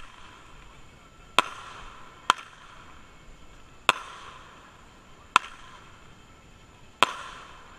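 Multi-shot firework tube firing shots one after another: five sharp pops about one to one and a half seconds apart, most followed by a short fading hiss.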